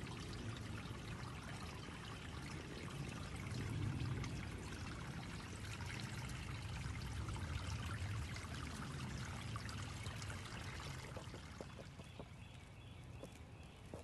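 Water flowing steadily, like a small stream trickling and running, fading somewhat over the last few seconds.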